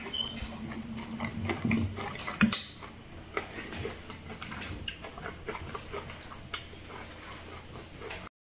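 Close-up chewing of a mouthful of esquites (buttered corn kernels), with many small wet mouth clicks and smacks. There are sharper clicks right at the start and about two and a half seconds in.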